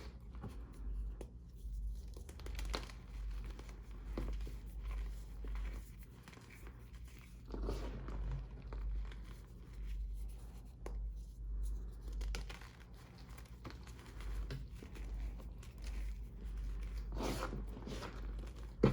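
Reformed gym chalk, not fully dried, crunching and crumbling as it is crushed by hand, in irregular crackles that thicken into denser crunches a couple of times, over a low steady hum.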